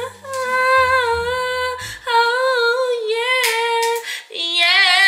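A woman singing long, held notes that waver slightly, over a low bass line that drops out about two seconds in. Near the end the voice moves to a wavering, higher note.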